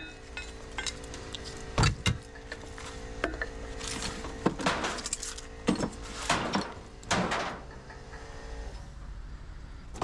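Hammer work on scrap transformers: sharp knocks, then several clattering, scraping metal bursts at irregular intervals, over a steady hum that stops near the end.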